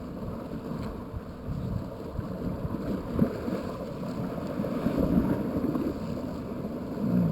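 Wind rumbling on the microphone over water sloshing, as a cast net is hauled back in through the water.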